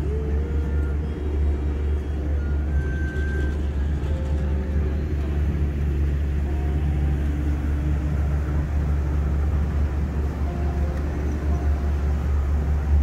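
Steady low rumble of a moving river cruise boat's engine, heard from on board.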